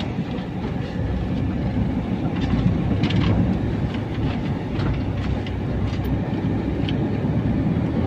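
Steady road and engine rumble heard inside a moving van's cabin, with a few short clicks and rattles scattered through it.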